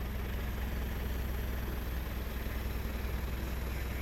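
Safari vehicle's engine idling steadily, a low even rumble.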